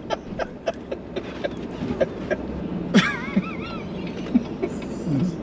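Steady road noise inside a moving car's cabin, with scattered short clicks. About three seconds in comes a sharp burst followed by a brief wavering, high-pitched laugh.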